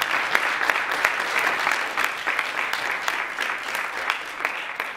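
Audience applauding, many hands clapping together, the applause tapering off toward the end.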